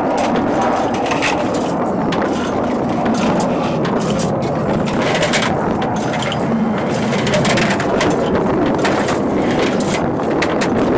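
Ammunition loader for an AV-8B Harrier II's cannon, clattering with many quick metallic clicks and rattles as rounds are fed through it, over a steady mechanical din.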